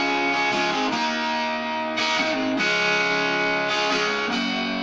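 Distorted electric guitar playing ringing chords, changing every second or so.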